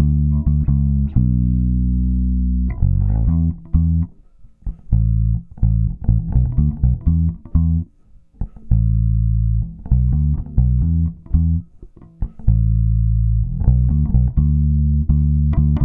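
Bass guitar playing a riff through one channel of a dbx 164 stereo compressor, the compressor working on it. Long held notes open and close the passage, with a choppy run of short, separated notes in the middle.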